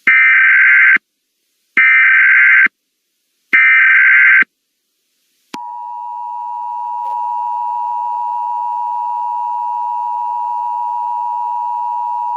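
Emergency Alert System alert header: three identical one-second bursts of warbling data tones (the SAME header), then, about five seconds in, the steady two-tone EAS attention signal (853 and 960 Hz). It marks the start of a new emergency broadcast message.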